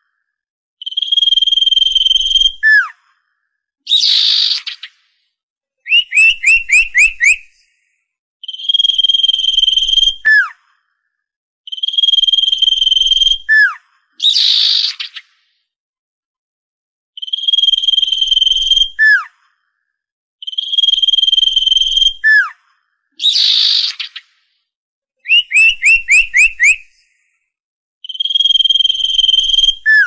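Common iora song, looped. A long, steady, clear whistle ends in a short falling note. After a pause comes another whistle-and-drop, then a harsh rasping note and a quick run of about five falling chirps. The whole phrase repeats about every nine seconds, a lure recording for trapping ioras.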